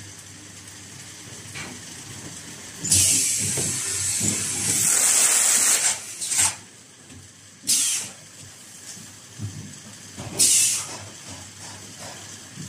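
Automatic carton sealing machine working: compressed air hissing in bursts, one long blast of about three seconds starting about three seconds in, then three short blasts, over the low mechanical running of the machine and conveyor.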